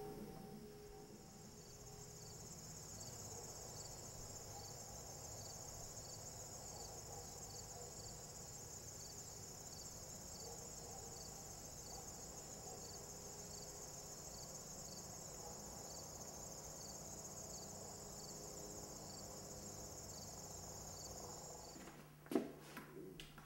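A chorus of field insects trilling steadily and high-pitched, with a faint regular pulsing, that stops abruptly near the end, where a couple of short knocks are heard.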